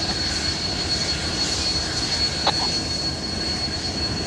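Union Pacific 844, a 4-8-4 steam locomotive, making a steady rumble and hiss as steam escapes near its cylinders. One short, sharp sound comes about two and a half seconds in.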